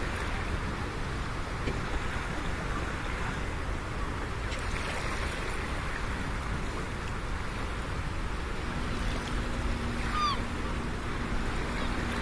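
Open-sea ambience from a small boat: a steady wash of water and wind. A short high downward chirp sounds about ten seconds in, and a faint low steady hum comes in for the last few seconds.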